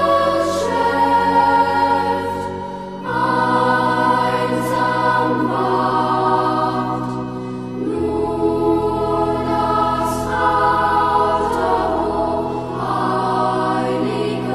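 Background choral music: a choir holding long sung chords that change about every few seconds, with new phrases coming in near 3, 8 and 13 seconds.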